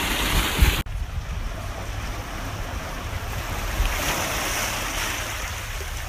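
Small sea waves washing and splashing over shoreline rocks, with wind buffeting the microphone as a low rumble. The sound breaks off for a moment just under a second in.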